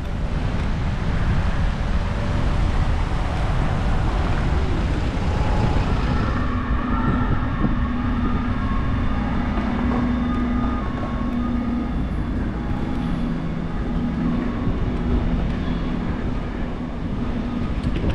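Wind rushing over the microphone of a camera riding on a moving bicycle, mixed with city traffic noise. From about six seconds in, a steady pitched hum with a few held tones joins it.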